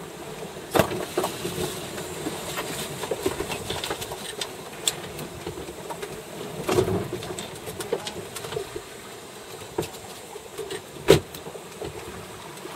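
Steady rushing background noise inside a sailing yacht's galley under way, with scattered clicks and knocks of galley gear. The loudest knock comes about 11 seconds in.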